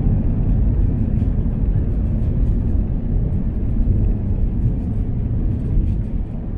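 Jet airliner rolling along the runway after touchdown, heard from inside the cabin: a steady deep rumble that eases slightly near the end.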